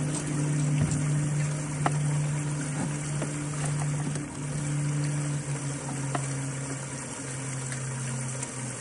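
Small electric motor on a fishing boat humming steadily, its pitch dipping slightly a few times, with a few faint clicks.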